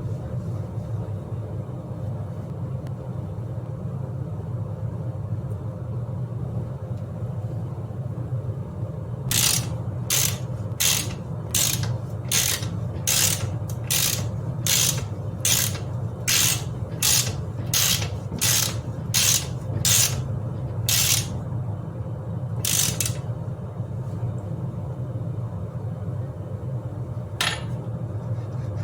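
Ratchet wrench being worked in a run of about seventeen short, even back-strokes, each a quick rasp of pawl clicks, over a steady low hum. The strokes start about nine seconds in and stop a few seconds past the middle, with one more stroke near the end.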